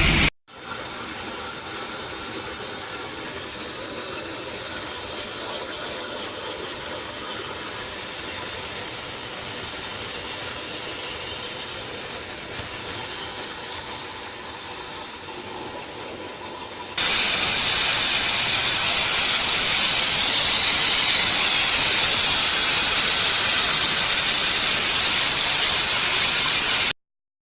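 CNC plasma cutting torch hissing steadily as it cuts sheet metal. About two-thirds of the way through the sound jumps abruptly to a louder, brighter hiss, which stops suddenly near the end.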